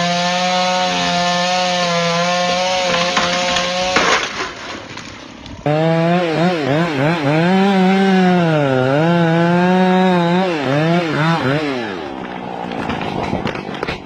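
Chainsaws cutting wood: first one held at a steady high rev for about four seconds, then another sawing into a large tree trunk, its pitch sagging and recovering as the chain loads in the cut. The saw stops about twelve seconds in, giving way to rougher noise with scattered cracks near the end.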